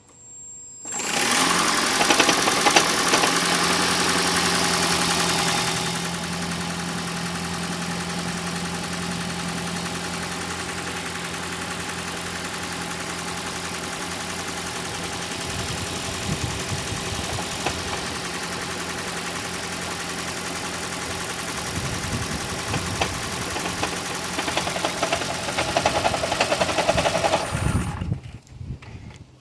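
A 2012 Toyota Prius's 2ZR-FXE 1.8-litre four-cylinder engine starts about a second in, runs loud for several seconds, then settles to a lower steady running level before shutting off near the end. Uneven knocks come and go in the second half: the engine knock being chased with the oil pressure test.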